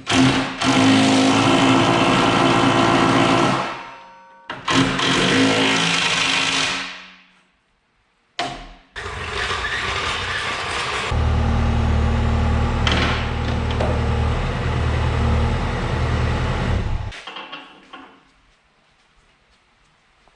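A motor running in four bursts, each a few seconds long: the first two fade out, a short one comes at about eight seconds, and the longest, with a strong low hum, cuts off after about seventeen seconds.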